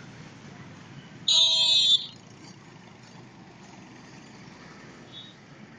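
Street traffic with a vehicle horn blaring once for under a second about a second in, the loudest sound here, and a short faint horn beep near the end.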